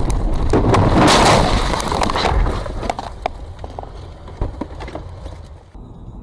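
Car crash recorded from inside the car: a loud impact and crunching that lasts about two seconds, followed by scattered knocks and rattles as the dashcam is knocked loose.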